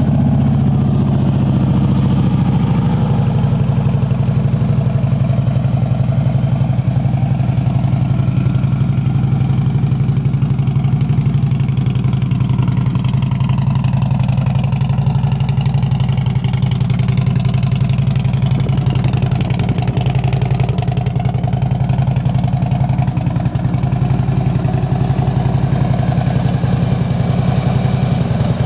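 2009 Harley-Davidson Ultra Classic's 96-cubic-inch fuel-injected V-twin idling steadily just after being started, settling to a slightly lower idle about three seconds in.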